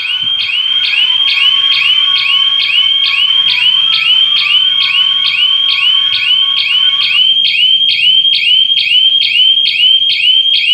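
Electronic siren of a GSM burglar alarm sounding after a detected security breach. It is a fast, high-pitched, repeating rising chirp, about three a second.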